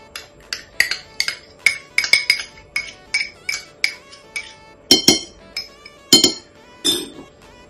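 Metal teaspoon tapping and scraping against a yogurt tub and a glass mixing bowl as yogurt is spooned into flour: a quick run of light, ringing clinks, about three a second, with a few heavier knocks in the second half.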